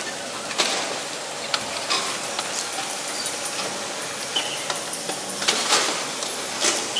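Food wrapper crinkling and rustling close to the microphone: a steady crackly hiss with many sharp little crackles.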